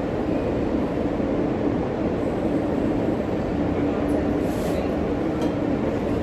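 Subway car noise: a steady low rumble with a held hum, and a few faint high ticks.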